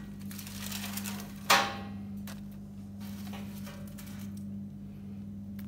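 A single sharp clink with a brief ring about one and a half seconds in, and a few soft knocks: toast pizzas being moved from a metal baking tray onto a plate. A steady low hum runs underneath.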